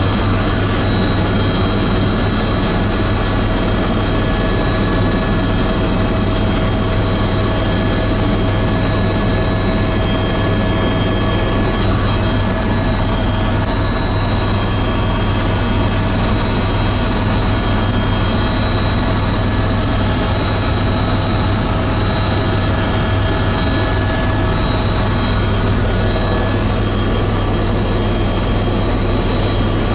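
Eurocopter EC130 helicopter in steady cruise, heard from inside the cabin: its Turbomeca Arriel 2B1 turboshaft and rotors make a constant loud drone, with a strong low hum and several steady high whines.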